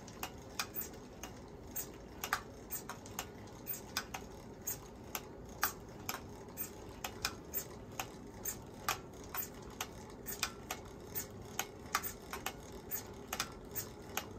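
Märklin toy steam engine running and driving small drive models through a line shaft: a steady low hum with a quick, slightly uneven string of sharp clicks and ticks, about three a second.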